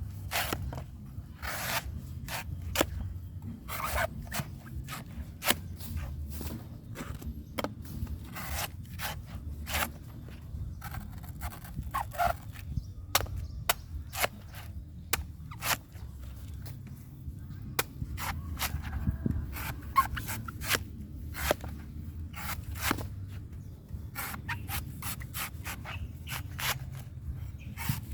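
A knife cutting and scraping the husk off a coconut: many short, sharp strokes and scrapes at an irregular pace, about one or two a second, over a steady low rumble.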